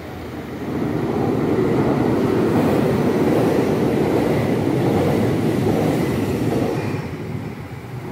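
A Trenitalia Pop electric multiple unit passing close by, its wheels rumbling along the rails. The sound swells about a second in, holds for some six seconds and fades away near the end.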